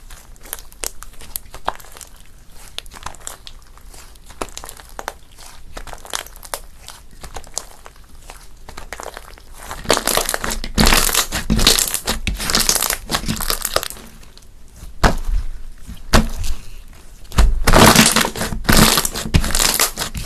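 Slime being squeezed and pressed by hand, a dense run of small crackles and pops. The crackling gets much louder in bursts from about halfway through.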